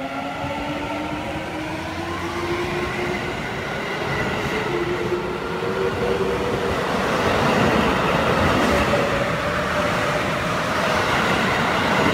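Yellow Seibu electric commuter train pulling out and gathering speed: its traction motors whine in several tones that climb steadily in pitch. From about seven seconds in, wheel and rail noise grows louder as the cars rush past faster.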